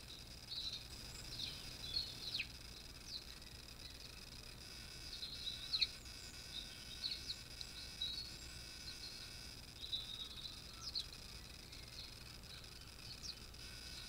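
Small garden birds chirping: scattered short, high chirps and a few quick downward-sweeping calls, over a faint steady hiss.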